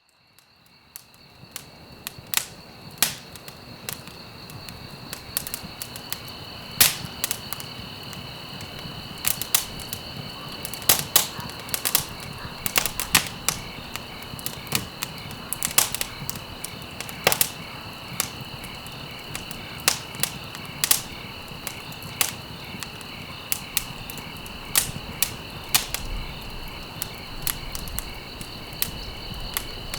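Wood fire crackling, with irregular sharp pops over a soft steady hiss, fading in over the first two seconds. Crickets trill steadily behind it.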